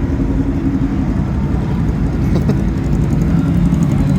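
Car engines running with a steady low drone.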